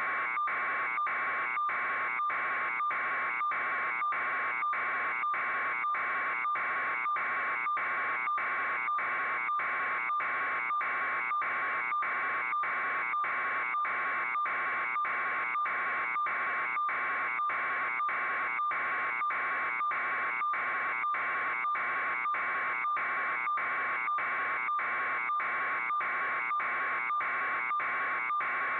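An electronic buzzing tone pulsing evenly, about three pulses every two seconds, at an unchanging level throughout.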